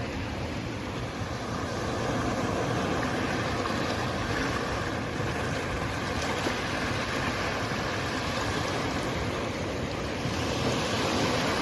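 Ocean waves washing in a continuous, even rush of noise that swells slightly near the end.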